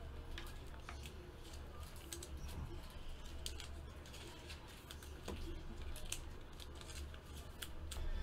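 Faint scattered clicks and taps of trading cards being handled and set down on the table, over a steady low hum.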